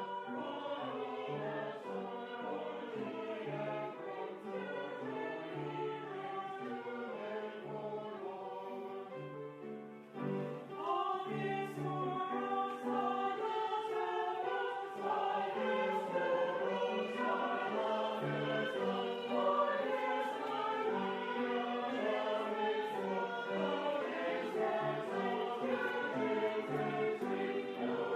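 A choir singing, with a short break in the music about ten seconds in before it carries on.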